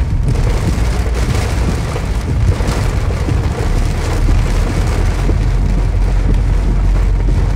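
Heavy rain beating on a moving car, heard from inside the cabin over the steady low rumble of the car on the wet road.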